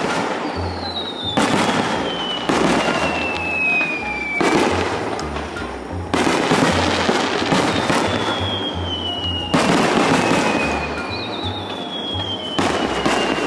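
Aerial firework shells bursting overhead. About six sharp bangs come a second or more apart, each trailing off into crackling and rumbling. Three long whistles sound between them, each falling slowly in pitch over a few seconds.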